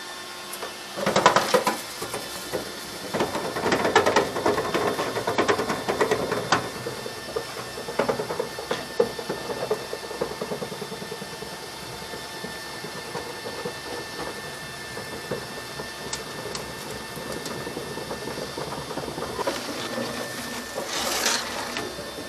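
Dryer vent cleaning equipment working inside a lint-clogged vent duct: a steady mechanical whirring and rattling with irregular knocks and scrapes. Louder scraping bursts come about a second in, around four seconds in, and again near the end.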